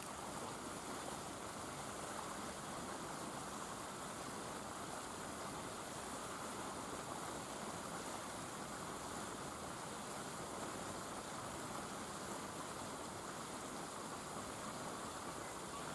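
Steady, even background hiss of room noise, with no distinct sounds standing out.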